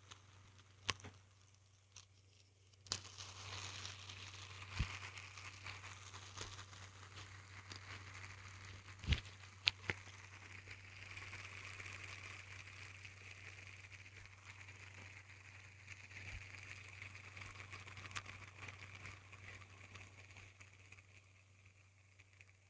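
Hand spinner being handled with a few sharp clicks, then flicked into a spin: a long, steady whir from its bearing that slowly fades away.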